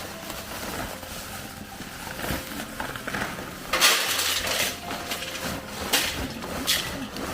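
Clattering and scraping of a pot as food is stirred and mixed in it, loudest about four seconds in, with further clanks near six and seven seconds.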